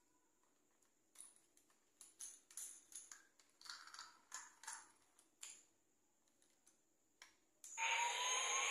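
Plastic clicks and rattles of a toy airliner being handled, then near the end a loud electronic sound effect switches on: a hiss with a rising whine, the toy's imitation of a jet engine spooling up.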